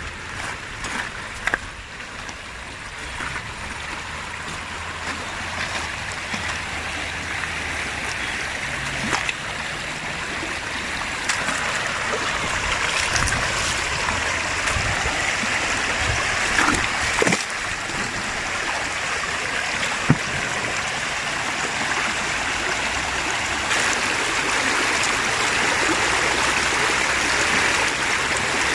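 Stream water rushing and splashing over rocky rapids, growing steadily louder, with a few short knocks.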